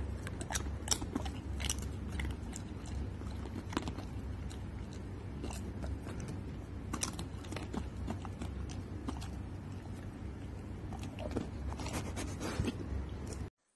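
A dog chewing a crunchy treat right against the microphone, with many irregular sharp crunches over a low hum.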